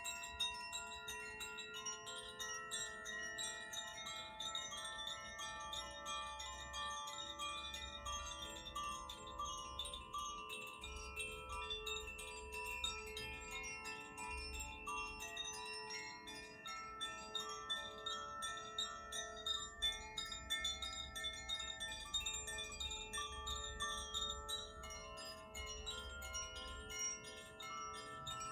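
Tuned wind chimes of the Koshi and Zaphir kind, played without a break: many bright ringing tones struck in quick succession that sustain and overlap into a shimmering wash.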